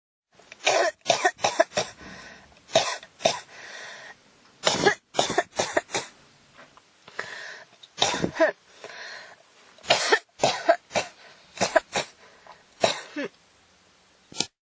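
A person in a coughing fit that won't stop: hard coughs come in quick runs of two to five, with breaths drawn in between the runs. A last single cough comes near the end.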